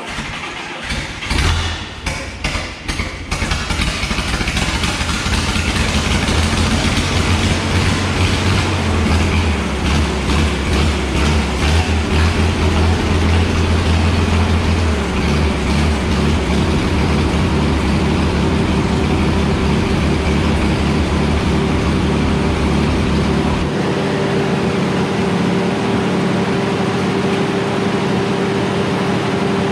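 Power Horse farm tractor engine starting with a few uneven bursts in the first seconds, then running steadily; about 24 seconds in its note changes, the deep drone dropping away and a higher steady tone taking over.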